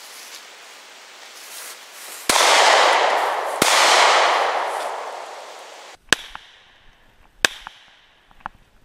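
Gunshots from a Glock 43 9mm pistol: two sharp reports over a loud rushing hiss that fades over about three seconds, then two more shots about a second and a half apart and a fainter report near the end.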